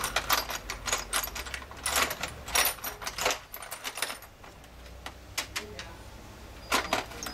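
Small metal parts clicking and clinking in quick irregular succession as a washer and bolt are worked onto a go-kart's steering tie rod. The clinks are busiest in the first four seconds, with a few more near the end.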